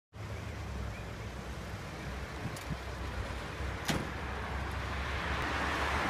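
Street traffic noise with a steady low rumble, swelling near the end as a vehicle passes, and one sharp click about four seconds in.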